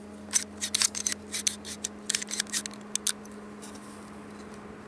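Sharp metallic clicks and clacks of a SIG Sauer P227 .45 ACP pistol's slide and action being worked by hand, the slide drawn back. A rapid, uneven run of many clicks that stops about three seconds in.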